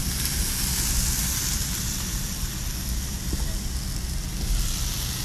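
Steady low rumble of a vehicle rolling slowly along a gravel forest road, with the hiss of roadside brush and small trees burning close beside it.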